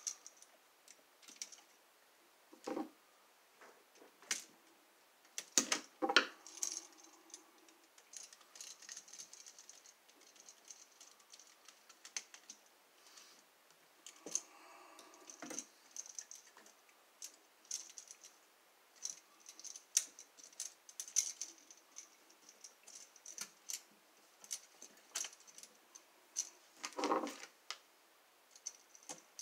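Hand work with a screwdriver on an electrical wall outlet: scattered small metal clicks, scrapes and rattles as the screws are turned and the outlet and wires are handled. A few louder knocks come about six seconds in and again near the end.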